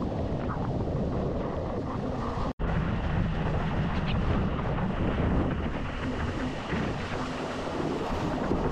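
Wind buffeting a board-mounted action camera's microphone, mixed with the rush and splash of water spraying over the nose of a windsurf board planing through chop. The noise is steady and heavy in the low end, and cuts out for an instant about two and a half seconds in.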